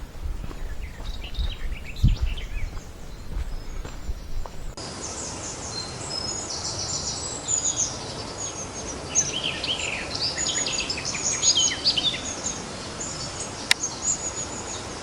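Songbirds chirping and warbling in woodland, many short high calls overlapping, much thicker from about five seconds in, over a steady outdoor hiss. A few footsteps at the start.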